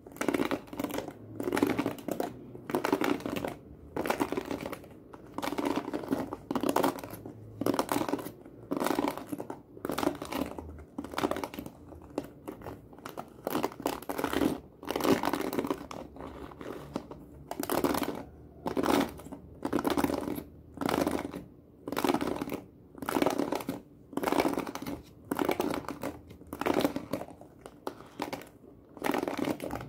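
Fingers raking across the bristles of a hairbrush close to the microphone. The strokes come over and over, a little more than one a second, each a short crackling rustle.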